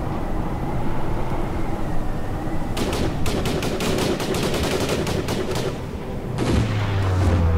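Rapid volleys of gunfire from a line of shooters firing AR-style rifles: many overlapping sharp shots for about three seconds, starting a little before the halfway point. Before the shots there is a steady whirring noise, and a deep low rumble sets in near the end.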